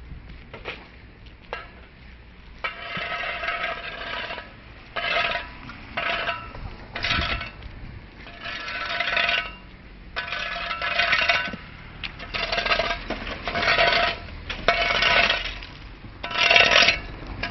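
Broken bricks and concrete rubble clinking and clattering as they are shovelled and tossed onto a pile, in repeated bursts every second or two.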